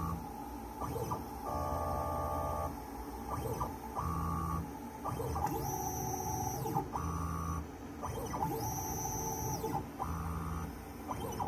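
CNC 3040 router's stepper motors whining through a string of short axis moves while it mills a PCB with a 0.5 mm V-bit. The tones switch on and off about every second, with pitch glides up and down as the axes speed up and slow down.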